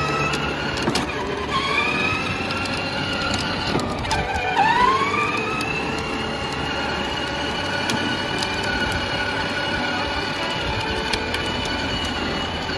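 Whine of a small electric motor changing speed: it rises in pitch over the first few seconds, drops sharply about four and a half seconds in and climbs back, then runs at a steady pitch, with a few light clicks.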